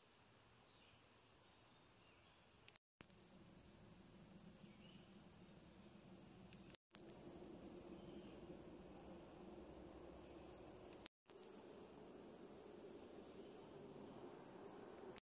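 Insect chorus in the woods, a steady high-pitched drone that cuts out briefly three times.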